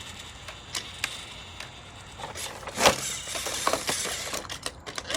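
Plastic toy trains and track pieces clicking and knocking over a low, steady background noise, with one sharper knock about three seconds in and a run of small clicks near the end.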